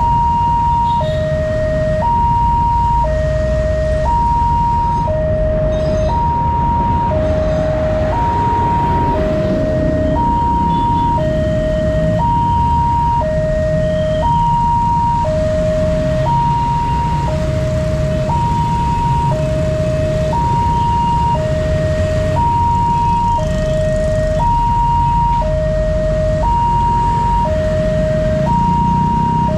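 Level-crossing warning alarm sounding: an electronic two-tone signal alternating a higher and a lower tone, each held about a second, repeating steadily. A steady low rumble of engines runs beneath it.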